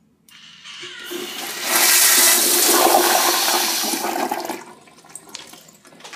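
Crane toilet flushing. A rush of water builds to a loud surge lasting about three seconds, then falls away to a quieter refill hiss, with a steady low tone underneath.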